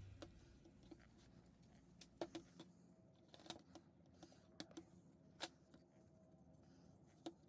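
Near silence broken by a handful of faint, irregular clicks and taps.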